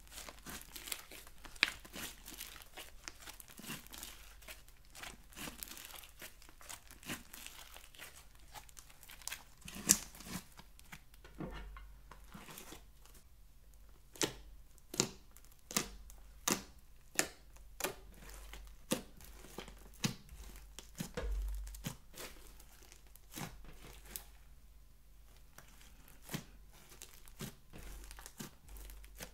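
Thick blue slime mixed with small foam beads being stretched, pressed flat and kneaded by hand, giving sticky crackles and sharp pops. In the middle of the clip the pressing sets up a regular run of pops, a little faster than one a second.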